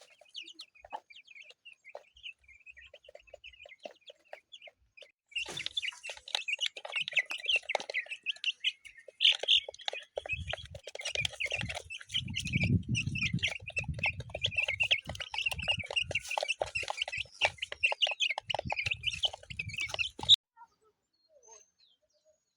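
Young chicks peeping in a busy chorus, which gets louder and denser about five seconds in, with low knocks mixed in, and cuts off abruptly near the end.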